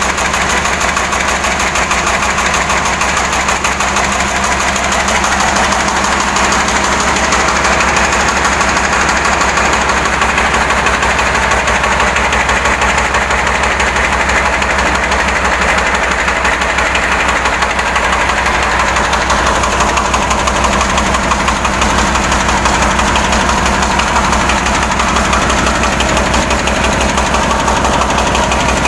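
Two-wheel hand tractor's diesel engine running steadily, its rapid even firing pulses unbroken.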